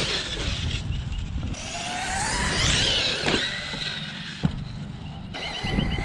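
Arrma Kraton 6S RC truck driving, its electric motor whine rising in pitch as it speeds up about two seconds in, over the rush of tyres and drivetrain, with a single sharp click later on.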